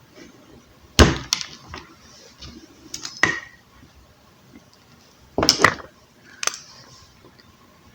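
Hand tools and plug parts knocking and clattering while a stiff extension cord plug is worked apart: a few sharp knocks, the loudest about a second in and again about five and a half seconds in, with smaller clicks between.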